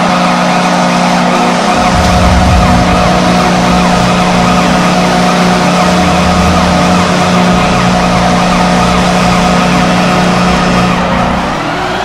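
D.C. United's stadium goal horn sounding one long, steady blast that eases off near the end.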